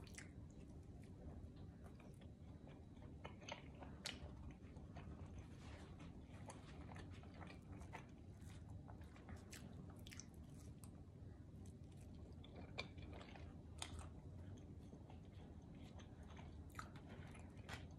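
Faint chewing and biting of pizza, with scattered small mouth clicks and a few slightly louder bites.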